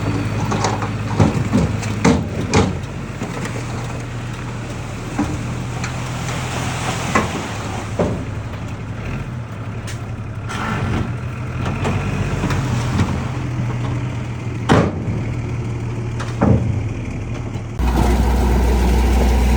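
Heavy earthmoving machinery's diesel engine running steadily, with sharp clanks and knocks every few seconds. Near the end it switches abruptly to a louder, lower engine hum.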